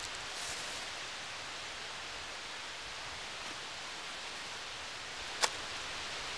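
Steady, even outdoor hiss, with one sharp click about five and a half seconds in as gear is handled in a backpack.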